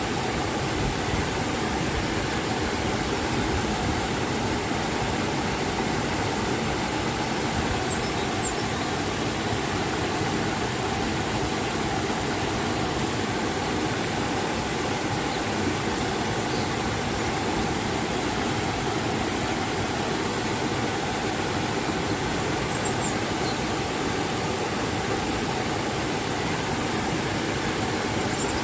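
Steady rush of a river and waterfall, an even, unbroken water noise.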